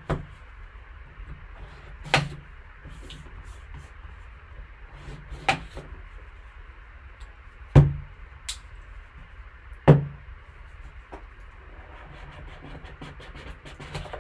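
A sealed cardboard trading-card box handled and set down on a table: five sharp knocks, the loudest two about eight and ten seconds in, with faint small ticks near the end, over a steady low hum.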